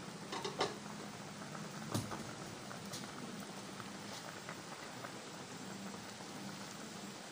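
Spiced chicken stock at a rolling boil in an open pan: steady bubbling, with a few short sharp clicks about half a second and two seconds in.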